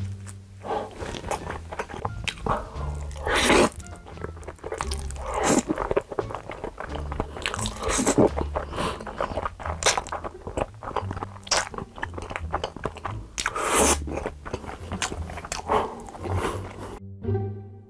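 Close-miked mukbang eating: biting into and chewing a thick slab of grilled Spam, with loud slurps of black bean noodles, over quiet background music. Near the end the eating stops and only music is left.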